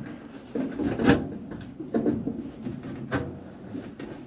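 Copper tubing and brass fittings knocking and rubbing together as a freshly made copper connector piece is test-fitted to a liquid line solenoid valve, with a few sharp clicks, the loudest about a second in.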